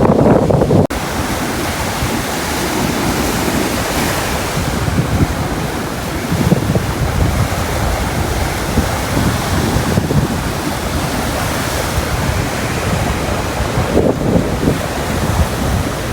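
Rough sea churned up by a typhoon, surf washing and breaking against a harbour breakwater, with wind buffeting the microphone. The heaviest wind rumble cuts off abruptly about a second in.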